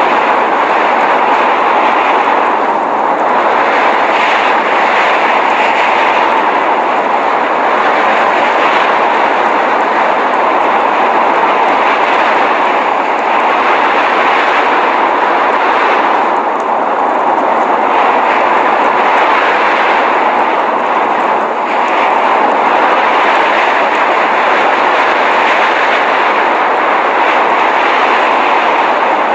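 Steady blizzard noise: a dense, even rushing hiss centred in the mid range, with only slight swells and dips in loudness.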